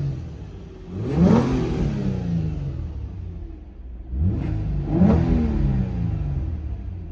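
Infiniti G35's 3.5-litre V6 on its stock exhaust, revved sharply about a second in and again around four seconds in, the pitch falling back slowly toward idle after each rev.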